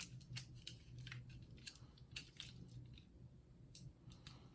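Faint handling noise: scattered small clicks and rubs of fingers turning a plastic action figure.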